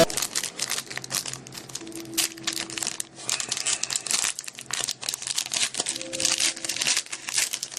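Wrapper of a trading card pack crinkling as it is handled and opened, a dense run of short crackles.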